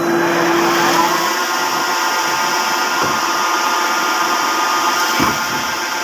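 Manual lathe running with a steady motor and gear whine, which comes up to a steady pitch over the first second. There is a short knock about five seconds in.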